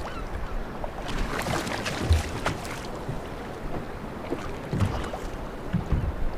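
Water splashing and knocks against a fishing kayak's hull as a hooked pollock is brought alongside, with wind on the microphone. There is a cluster of splashy crackles a second or two in and a few dull knocks later.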